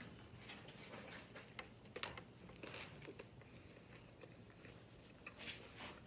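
Faint, close chewing of a mouthful of Italian beef sandwich: soft mouth and smacking sounds with scattered small clicks, a few sharper ones about two seconds in and again near the end.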